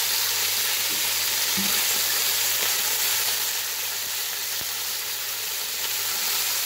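Beef masala frying in oil in a pot, sizzling with a steady hiss, with raw rice just added on top.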